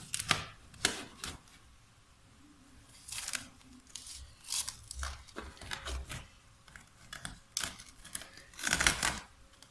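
Plastic cling film being pulled off its roll and stretched over a glass bowl, crinkling in short rasps. It is torn off the roll in a louder burst near the end.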